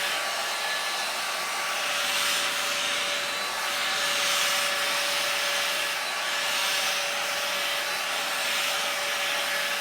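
A square two-in-one hot-air dryer brush running, its fan blowing with a steady whine and rush of air that swells and eases slightly as it is worked through a child's hair.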